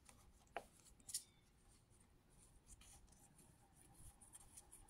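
Faint handling of trading cards: soft rubbing and light ticks as cards are slid and flipped, with two sharper clicks in the first second or so.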